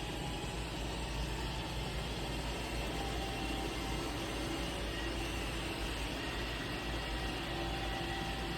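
Roomba robot vacuum running: a steady motor hum and whir with a few faint whining tones.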